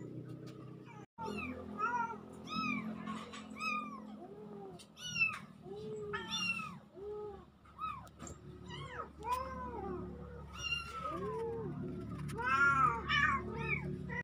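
Kittens meowing over and over in short, high, rising-and-falling mews, about one or two a second, coming thicker and louder near the end.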